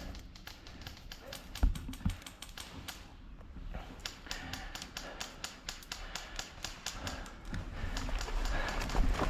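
Airsoft gunfire: a long run of sharp, irregular ticks and clicks, several a second, growing busier in the second half, with a dull low thump about one and a half seconds in.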